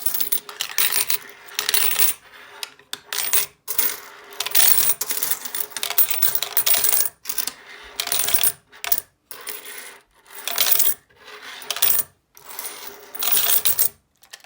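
Quarters thrown by the handful into a quarter-measuring tube, clinking and jingling in about ten bursts with short pauses between them, stopping just before the end.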